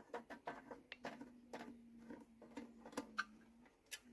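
Faint, irregular clicks and taps of tools and small bolts as the top-cover bolts are undone on a Briggs & Stratton lawnmower engine, with a faint steady hum through the middle.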